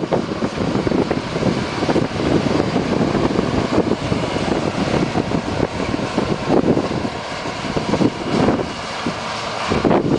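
New Holland T6080 tractor's six-cylinder diesel working under load as it passes and pulls away, driving a power harrow and seed drill through tilled soil.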